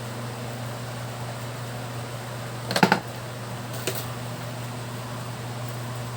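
Steady low hum with a short rattle of sharp clicks a little under three seconds in and one more click about a second later.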